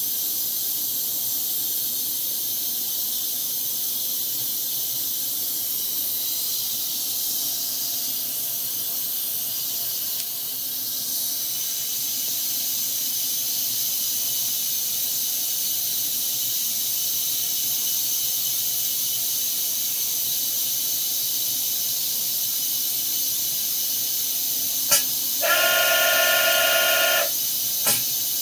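Steady high-pitched hiss of air inside a CNC machine fitted with a pneumatically braked Nikken rotary table. Near the end there is a sharp click, a buzzing tone of about two seconds, and another click.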